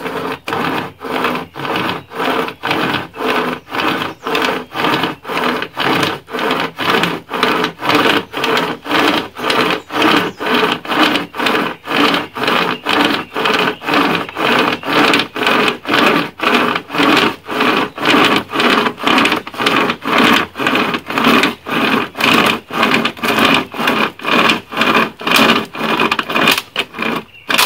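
Hand-pulled pocket chainsaw, a chainsaw chain on two strap handles, sawing through a wood branch. It makes steady rasping strokes, about two a second, that stop near the end.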